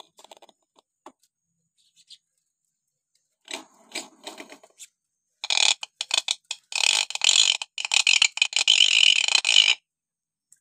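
Hill myna calling: a few soft clicks, then a short harsh call about three and a half seconds in, then a long scratchy, rasping chatter from about five and a half seconds that stops abruptly near the end.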